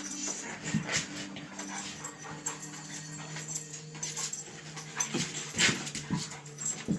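Dogs panting and sniffing, with short sharp breaths about a second in and several more near the end.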